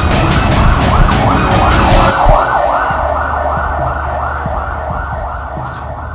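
Ambulance siren in its fast yelp, sweeping up and down about three times a second and slowly growing quieter. For the first two seconds it runs under music with a beat, which then stops.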